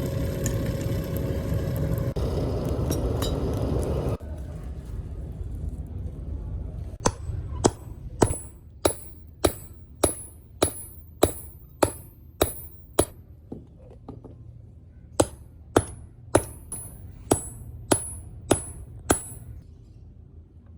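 A loud steady rushing noise for the first four seconds, then hand-hammer blows on steel at an anvil, about three every two seconds, each with a bright ring, in two runs with a short pause between.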